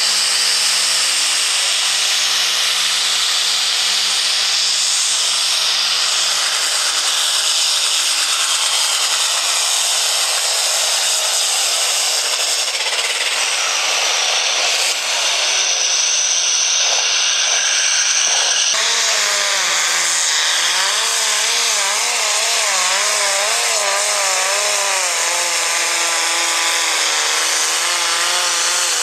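Light super stock pulling tractor's turbocharged diesel engine running flat out under load during a pull. After a break about two-thirds in, an engine revs up and down in an even wobble about once a second.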